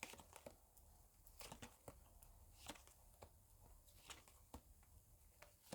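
Near silence with a few faint, short clicks scattered through it.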